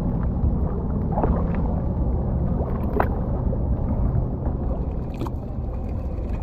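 Boat motor running with a steady low rumble as the hull moves slowly through the water, with three short sharp knocks or splashes about one, three and five seconds in.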